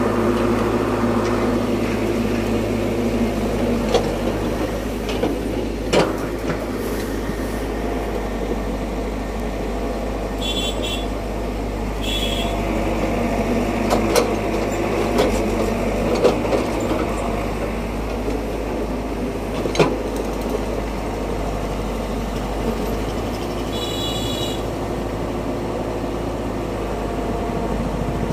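Komatsu PC71 mini excavator's diesel engine running steadily as it digs a trench. Several sharp knocks are spaced through it as the bucket works the soil.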